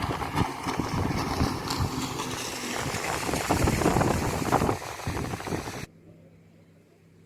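Wind buffeting the microphone in gusts over open water, cutting off abruptly about six seconds in to a faint low hum.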